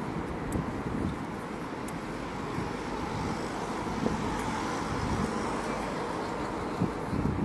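Steady urban street ambience, mostly a low rumble of road traffic.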